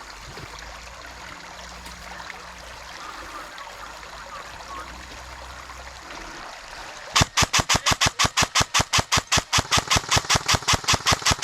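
Airsoft gun firing a long rapid string of shots, about eight a second, starting about seven seconds in and lasting some five seconds; before it only a low, steady outdoor background.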